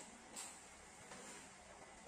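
Near silence: room tone, with one faint brief rustle about half a second in.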